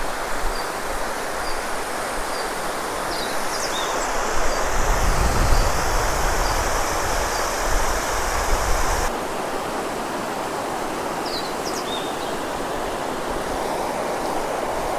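Waterfall rushing steadily, with birds chirping now and then. About four seconds in it grows louder with a low rumble, which cuts off abruptly about nine seconds in.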